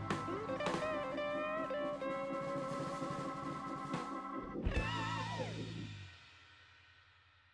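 Background instrumental music with drums and a melody line that bends in pitch. A final hit comes near the end, and then the music stops and dies away.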